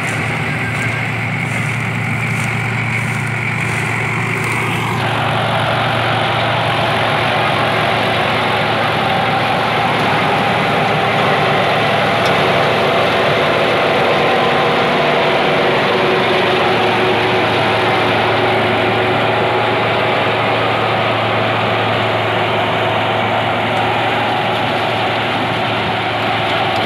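Tractor engine and tractor-drawn Vishavkarma-741 straw reaper running steadily, the reaper cutting and chopping wheat stubble into straw and blowing it into the trolley. The mix shifts abruptly about five seconds in.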